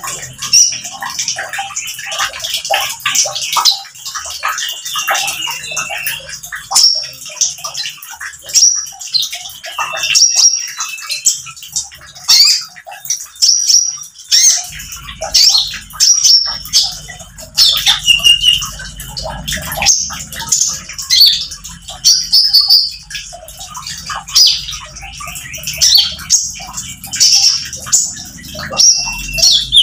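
Male Van Hasselt's sunbird (konin) singing intensely: a rapid, unbroken stream of high-pitched chirps, twitters and short trills.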